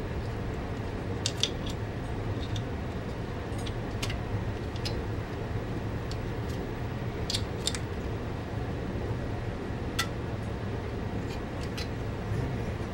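Small clicks and taps of a plastic CD drive mechanism and its wires being handled and fitted by hand, a few at a time, over a steady low hum.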